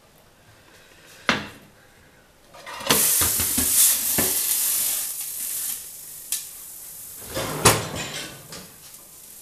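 Cooking pot and its glass lid being handled and set down on a glass-ceramic cooktop: a sharp knock, then about two seconds of loud rushing and clattering, and a few more clanks of pot and lid.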